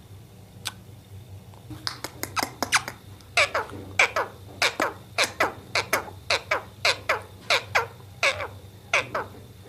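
Parrot giving a rapid run of short calls, about two a second, each falling sharply in pitch, starting about two seconds in.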